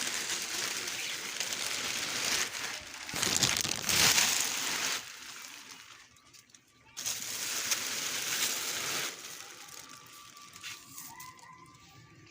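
Rustling, crinkling handling noise in two long bursts: the first runs about five seconds and is loudest near its end, and the second starts suddenly about seven seconds in and stops about two seconds later.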